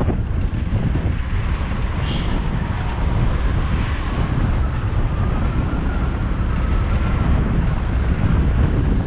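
Wind buffeting a GoPro's microphone on a moving car, over a steady rumble of road and engine. A faint wavering whine comes in a few seconds in and fades out near the end.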